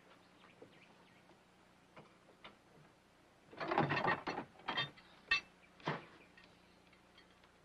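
Metal rattling about halfway through, then four short sharp clanks, as a latch and gear are worked by hand at the side of a semi truck's cab.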